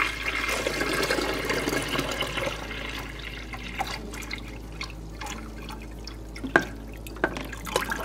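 Water pouring steadily for about three seconds, filling the coffee maker with water toward its 12-cup line for a first water-only brew cycle. The pouring then dies away, and a few light knocks follow near the end.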